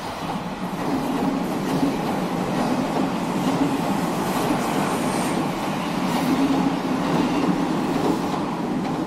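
Odakyu Railway electric commuter train running past close by: a loud, steady noise of wheels on the rails that swells just at the start and then holds.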